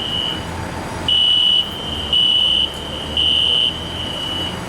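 Building fire alarm sounding a high, steady-pitched tone in the three-pulse evacuation pattern: three loud half-second beats about a second apart, then a pause, with a fainter alarm tone continuing between the beats.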